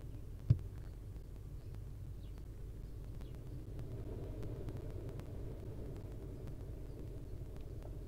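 A single sharp thump about half a second in, a barn owl nestling landing on the wooden floor of its nest box, over a steady low rumble.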